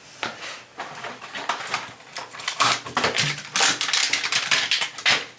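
Wax rings being handled and fitted at a toilet flange: rapid, irregular crackling and clicking, busiest in the second half.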